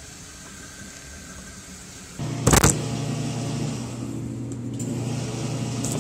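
A faint steady rumble, then a sudden change to an indoor shooting range: a single loud, sharp gunshot cracks about two and a half seconds in. It is followed by the steady low hum of the range's ventilation.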